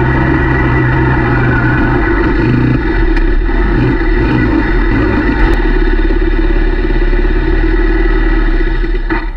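Quad ATV engine running steadily while riding, easing off near the end.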